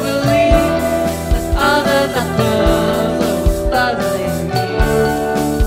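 Live rock band playing a song: sung vocals over electric guitars, keyboard and a drum kit, with the kick drum hitting through it.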